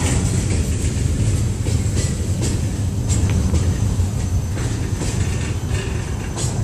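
A Ferromex freight train's open-top freight cars rolling past on the track: a steady low rumble with irregular sharp clacks of the wheels over the rails.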